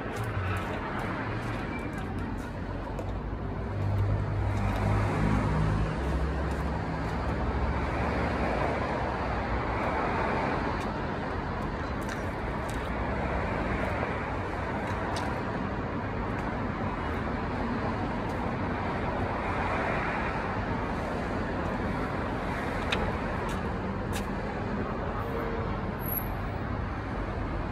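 Road traffic noise, a steady hum of cars with several louder swells as vehicles pass.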